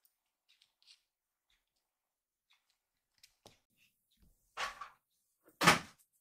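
Kitten moving inside a cardboard box, its paws and body knocking and scraping against the cardboard: a few faint ticks, then two short louder bumps near the end, the second the loudest.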